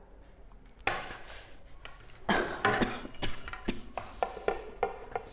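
An aluminium cake tin and a plate being handled on a table: a brief scrape about a second in, then from about two seconds a run of scraping with many sharp taps and knocks as the plate is set upside down over the tin.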